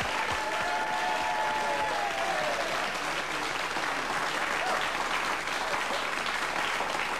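Studio audience applauding, a long, even round of clapping.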